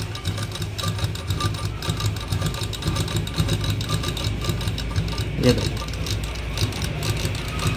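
Romy household sewing machine running steadily while sewing a test seam, its needle and feed going with a fast, even rattle of stitches.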